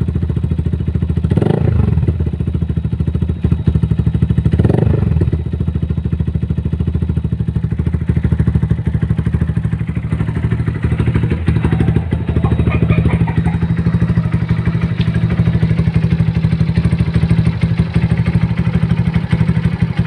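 Motorcycle engine with a Yoshimura aftermarket exhaust pipe idling, blipped twice in the first five seconds and then running steadily at idle, with a full, bassy exhaust note.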